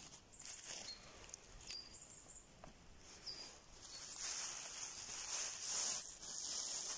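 Small birds chirping in short, high calls a few times, then footsteps rustling and crunching through dry fallen leaves, louder from about four seconds in.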